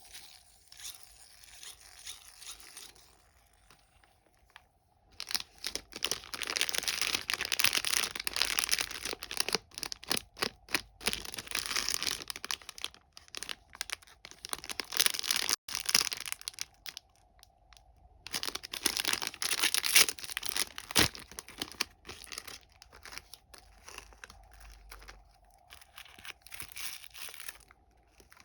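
Plastic candy wrappers crinkling and tearing as sweets are unwrapped by hand, in dense crackly runs that come in two long stretches with quieter handling between and after.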